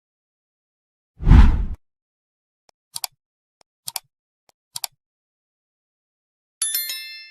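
Editing sound effects: a short low whoosh about a second in, three pairs of sharp clicks about a second apart, then a bright ringing chime near the end.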